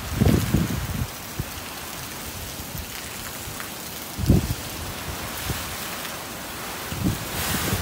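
Heavy hurricane rain pouring down steadily on pavement and trees. Low gusts of wind buffet the microphone in the first second, about four seconds in, and again near the end.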